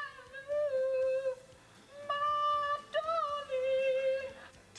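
A man singing in a high, wordless voice: long held notes in three phrases with short breaks between them.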